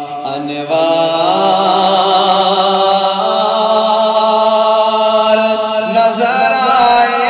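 A man singing an Urdu naat solo with no instruments, holding long drawn-out notes, with a short break about half a second in and a shift in pitch near the end.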